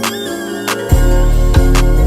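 Background music with a steady beat; a deep bass comes in about halfway through and the music gets much louder.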